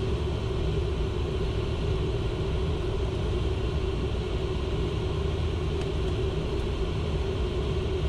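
Steady cockpit noise of a Learjet 60XR on final approach with the gear and flaps down: a low rumble of airflow over the airframe and the jet engines, with a steady hum under it.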